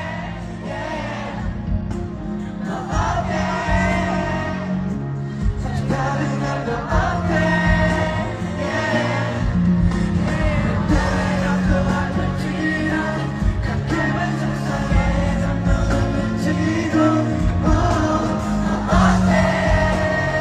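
Live hip-hop/pop music at a concert sound check: a sung vocal melody over a loud, bass-heavy backing track.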